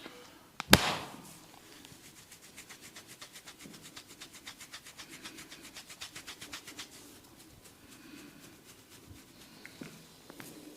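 Head massage percussion: one loud sharp hand slap, then quick rhythmic tapping with the fingers, roughly seven taps a second, stopping about seven seconds in, followed by softer rubbing.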